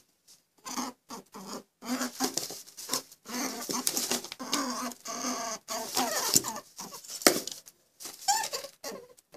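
Guinea pig squeaking and chattering in a run of short, separate calls with brief silences between them, and a sharp click about seven seconds in.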